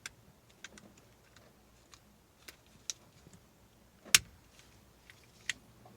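Scattered light plastic clicks and taps of steering-wheel wiring connectors being handled and plugged back in, with one louder click about four seconds in.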